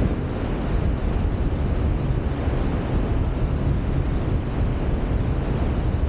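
Wind blowing on the microphone over the steady wash of ocean surf breaking on a sandy beach.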